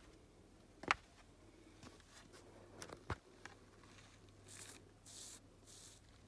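Quiet, with two sharp taps in the first half, then a finger scratching the dry, crumbly surface of badlands rock: a few short scratchy rustles in the last two seconds.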